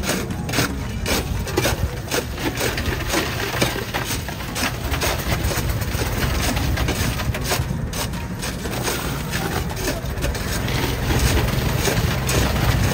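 Ice crunching and scraping as it is packed around the metal canister of a hand-churned sherbet freezer, so the buko sherbet inside chills and sets. The crunching is dense and irregular, over a steady low rumble of street traffic.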